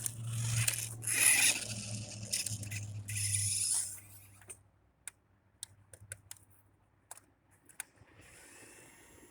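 Rear-wheel-drive off-road RC car driving on a sidewalk: its motor and wheels make a steady low hum with rough noise. About four seconds in the sound stops, and only a few faint clicks follow.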